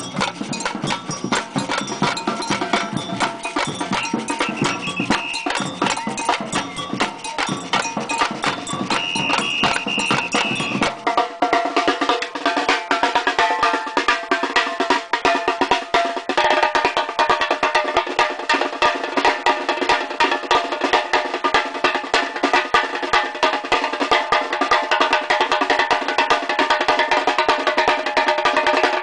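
Batucada samba percussion ensemble playing a dense, fast rhythm of drums with cowbell-like and wood-block-like strikes. The deep low end drops away about eleven seconds in.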